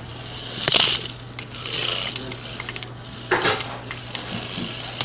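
Tiny toy RC car's electric motor and plastic gears whirring in short bursts, about three times, as it is driven in spurts, over a steady low hum.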